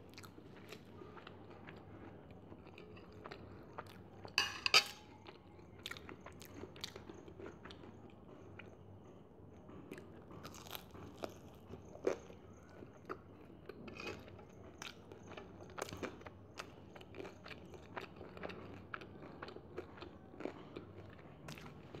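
Close-up chewing and crunching of batter-fried chicken, with sharp crisp crunches and wet mouth sounds scattered throughout. The loudest crunches come about four to five seconds in, and another sharp bite comes around twelve seconds.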